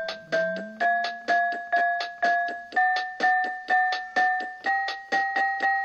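Background music on an electric piano or keyboard: a single repeated note, about two a second, the pitch stepping up after every four notes, so the line climbs steadily.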